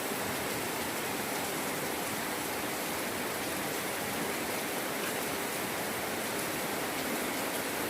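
Light, steady drizzle falling: an even hiss of rain with faint ticks of individual drops.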